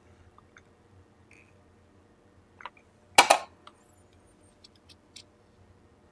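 Faint clicks and ticks of tweezers working the bent pins of an LGA 1151 CPU socket. One louder, short rustle comes about three seconds in.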